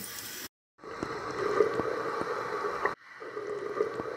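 Water sound effect in spliced pieces that cut in and out abruptly, with short gaps of dead silence between them and a few small clicks.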